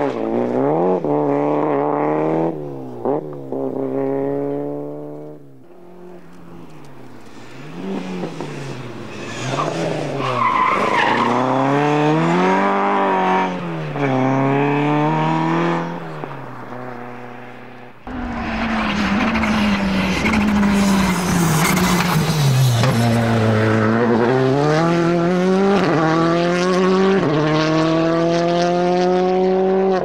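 Rally cars at full throttle, one after another, starting with a Peugeot 205: engine pitch climbs and drops sharply with each gear change. The sound fades for a moment early on and later cuts abruptly to another, fuller-sounding car revving hard.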